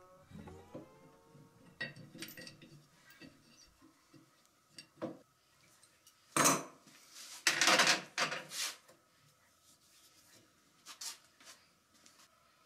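Metallic clinks and clatter of steel grinder parts and a hand tool being handled while a platen attachment is fitted onto a 2x72 belt grinder. The loudest clatter comes in two bursts, about six and a half and eight seconds in.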